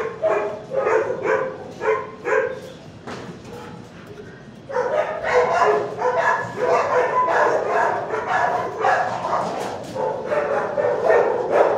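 Dogs barking in shelter kennels: a quick run of barks for the first couple of seconds, a brief lull, then dense overlapping barking from about five seconds in.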